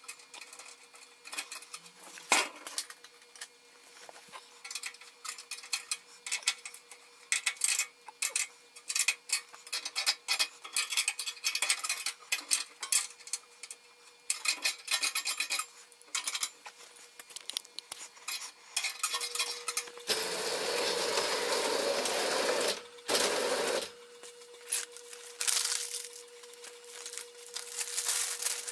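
Ratchet wrench clicking in quick runs of sharp metallic ticks as bolts on a steel forge frame are tightened. About two-thirds of the way through comes a few seconds of steady rushing noise.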